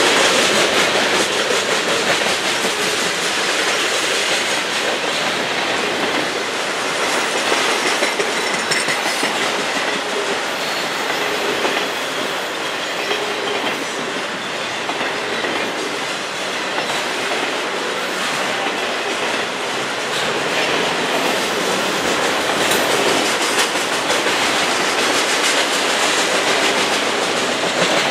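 Freight cars of a CN manifest train rolling past: a steady, continuous clatter and rumble of steel wheels on the rails.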